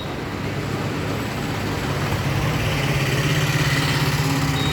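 A motor vehicle's engine running with a steady, fast-pulsing hum, getting somewhat louder around the middle.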